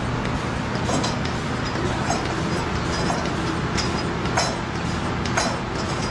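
Dairy milking machine running: a steady mechanical hum and hiss, with sharp clicks about once a second.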